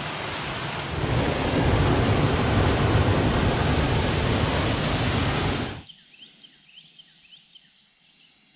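Rushing water from a rain-swollen run that is normally dry, a steady roar that grows louder about a second in and cuts off suddenly near six seconds. After that, faint chirping bird calls.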